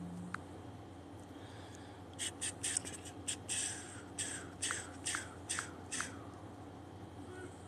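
An irregular run of about a dozen short, sharp clicks, starting about two seconds in and lasting about four seconds.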